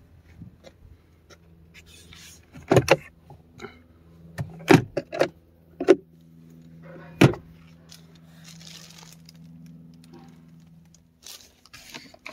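Glove box and storage compartments of a 2022 Chevrolet Silverado 1500 Trail Boss cab being opened and shut: a run of sharp knocks and clicks of plastic lids and trim, four loud ones spread between about three and seven seconds in. Plastic seat-cover sheeting crinkles, over a low steady hum.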